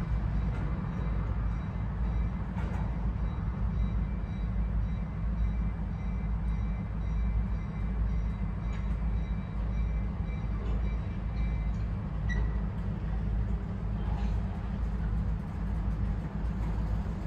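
A train rolling past on the tracks with a steady low rumble.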